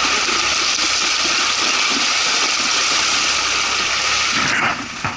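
Ford Ranger pickup's tyres rolling through standing water and mud, throwing up a steady hiss of spray, with the 2.5 turbodiesel engine running underneath. The spray noise drops away sharply near the end.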